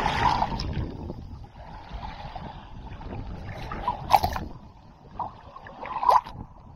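Small wavelets lapping and gurgling against a camera held at the waterline in shallow water. Sharper splashes over the housing come at the start, about four seconds in, and about six seconds in.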